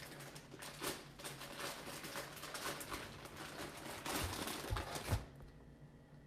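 Packaging rustling and crinkling as items are handled and pulled out of a box, a dense run of small crackles and rustles that stops about five seconds in.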